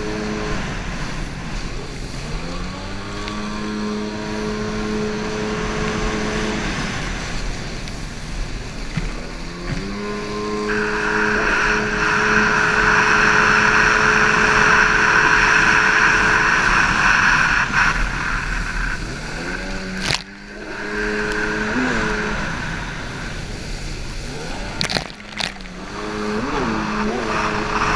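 Stand-up racing jet ski's engine heard from on board, its pitch rising as the throttle opens, holding high for several seconds, then dropping as it backs off, several times over. A loud rushing of water spray and wind swells in the middle, and a few brief knocks come later on.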